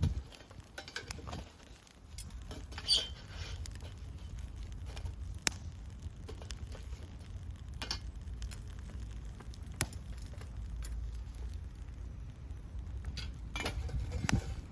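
A few separate clinks and clicks of metal cookware and eating utensils at irregular intervals, over a low steady rumble.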